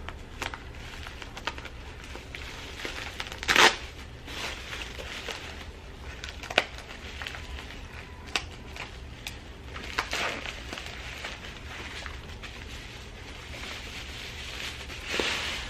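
Bubble wrap being peeled off and crumpled by hand: a steady plastic crinkling with scattered crackles and several louder rustles.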